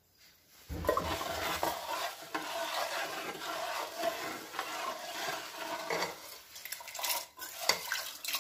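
A ladle stirring kidney beans and whole black lentils with water in a pressure cooker: a continuous scraping with small knocks against the pot, starting about a second in.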